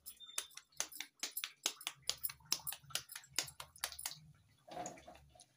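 Maize-flour kachori deep-frying in a kadhai of hot oil, the oil crackling with quick, irregular pops.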